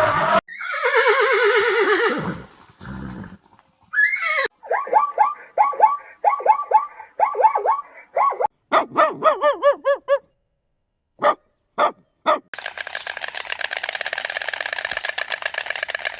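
Horse whinnying: a descending, quavering call, then a run of short repeated quavering calls. Near the end comes a steady, rapid rattling buzz.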